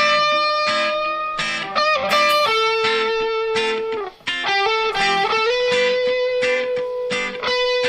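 Electric guitar playing a slow melody of long, held notes, some sliding down in pitch, in a reggae song.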